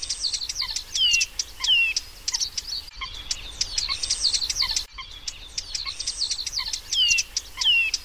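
Birdsong: rapid twittering chirps with a few clear descending whistles. It is a recording with abrupt cuts, and the same passage repeats a few seconds later.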